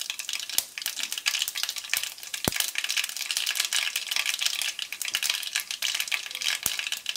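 Cumin and mustard seeds crackling in hot oil in a kadai during tempering (tadka): a steady sizzle with many quick pops and a few sharper cracks, the sign that the oil is hot enough for the seeds to splutter.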